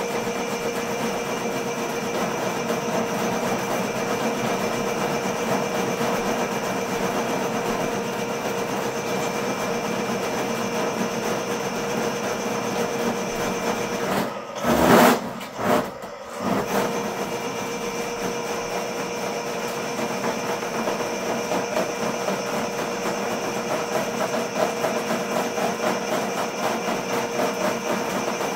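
Ridgid K-50 sectional drain machine running, its electric motor spinning the steel snake cable as it is fed into a floor drain, a steady mechanical whine with rattle. About halfway through the running sound briefly breaks, with a short louder burst.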